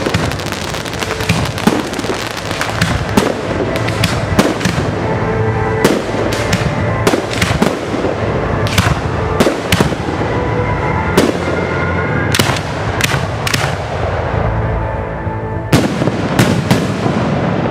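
Aerial fireworks shells bursting in rapid succession with crackling, thinning out to separate bangs about a second apart and ending with a last quick cluster. Music plays underneath throughout.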